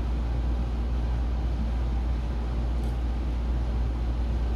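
Steady low hum with an even background noise over it, unchanging throughout.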